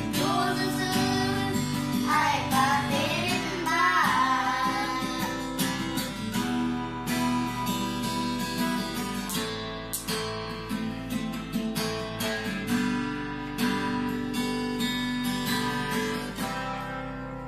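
Children singing the last line of a song over a strummed acoustic guitar. After about four seconds the voices stop and the guitar goes on strumming alone, slowly fading.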